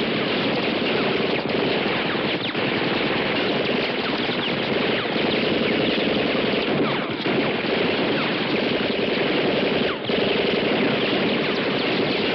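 Dense, continuous gunfire like a battle scene, many guns rattling at once with no gaps between shots, dipping briefly a few times.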